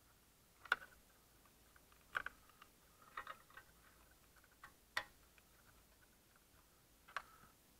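A handful of small, sharp plastic clicks and light knocks, about five spread unevenly with faint ticks between them, as wiring-harness connectors and cables are handled and pushed into place behind a car's dashboard trim.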